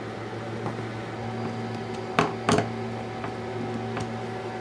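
Hand screwdriver working the front-cover screws of a Mecpow X4 Pro laser engraver: two sharp clicks a little past halfway and a few lighter ticks, over a steady low hum.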